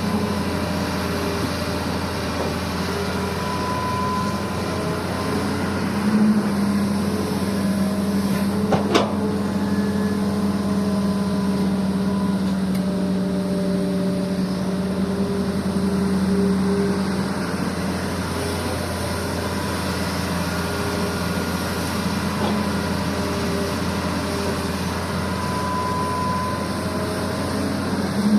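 Heavy diesel engine of an excavator running steadily as it digs and loads soil. The engine hum grows louder for several seconds in the middle, and there is a single sharp clank about nine seconds in.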